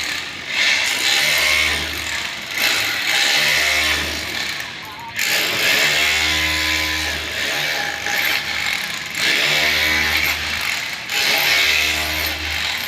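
Background music: a song with a steady, repeating bass beat and a voice or lead line over it.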